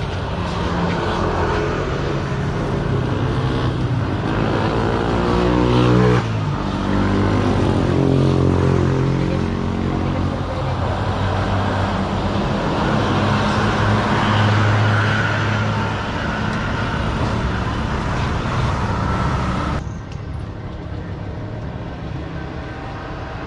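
Motor vehicle engine accelerating with its pitch rising, dropping sharply about six seconds in as it changes gear, then running steadily.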